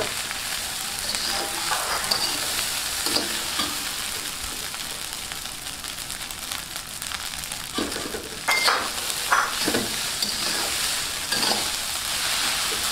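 Food sizzling steadily as it is stir-fried in a pan, with a spatula scraping and knocking against the pan now and then, several strokes in quick succession about eight to ten seconds in.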